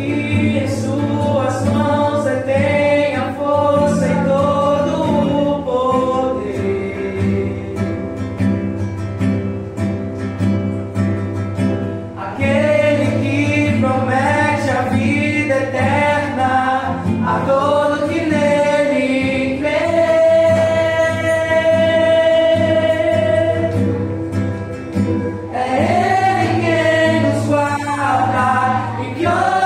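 Singing voices performing a Christian worship song to acoustic guitar accompaniment, with one long held note about two-thirds of the way through.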